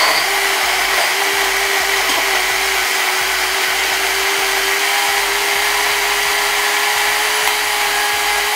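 Countertop blender motor running steadily at full speed, blending a thick shake of milk, oats, bananas and peanut butter. Its whine rises slightly in pitch as it runs.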